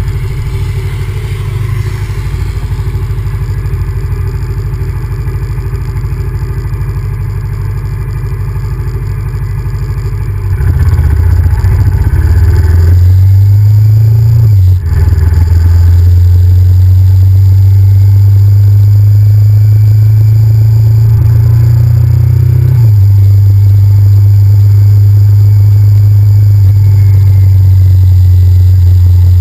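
Honda VTR1000F's 90-degree V-twin engine running on the move, getting louder and rising in pitch about a third of the way in. A short break and drop in pitch comes about halfway, after which it holds a steady, loud drone.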